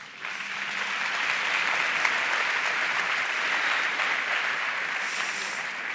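Large audience applauding. The clapping comes in just after the start, holds steady, and eases slightly near the end.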